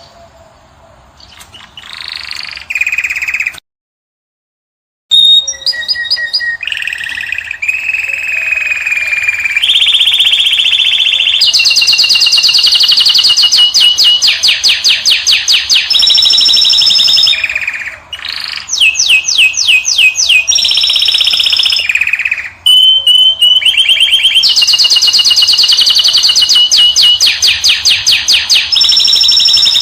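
A finch singing: long, fast rolling trills of quickly repeated notes, each held at one pitch and then switching to a new phrase, with a short gap of total silence about four seconds in.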